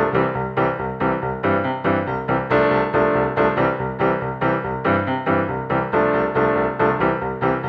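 Background music: a piano-like keyboard playing a steady, even run of notes.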